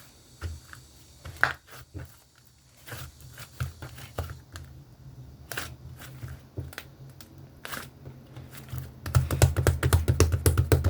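Sky-blue slime being squeezed and poked by hand: a run of sticky clicks and pops, scattered through the middle and coming fast and dense near the end.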